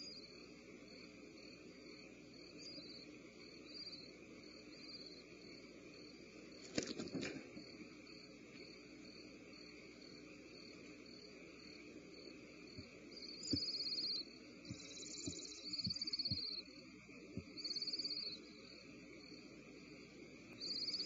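Barn owl nestlings' hissing begging calls: short hisses about twice a second, then several longer, louder hisses in the second half. A sharp knock about seven seconds in and a few soft thuds are movement in the wooden nest box, over a steady electrical hum.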